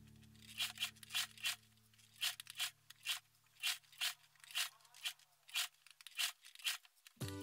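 Singer Talent sewing machine stitching slowly around a curve, one sharp click per needle stroke at about two a second, slightly uneven. Background music fades away and comes back just before the end.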